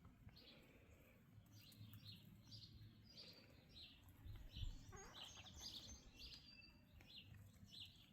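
Faint bird chirps, short and high, repeating a few times each second over a low rumble of wind.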